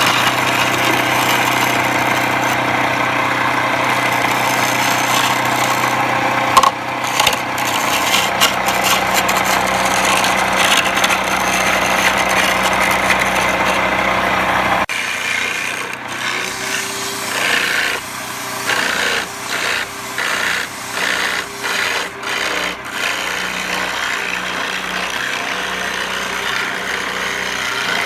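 Homemade wood lathe running with a steady motor hum while a tool scrapes and cuts the spinning wood. About halfway the sound changes abruptly, and the cutting comes as a series of short rhythmic scraping strokes.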